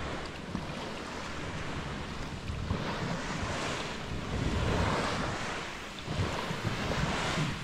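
Sea water washing and splashing around a sea kayak under way, swelling and easing a few times, with wind buffeting the microphone.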